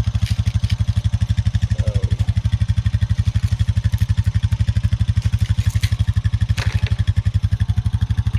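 Farm vehicle engine running steadily at idle, a rapid, even low throb, with a few faint clicks and rattles over it.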